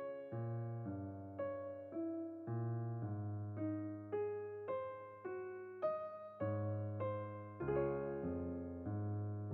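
Background music: a soft piano playing flowing broken chords, each note struck and fading, over held bass notes.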